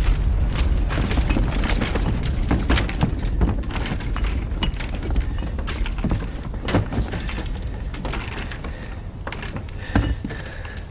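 Deep rumble after an explosion, with debris crashing and clattering down in many sharp impacts; the rumble slowly dies away.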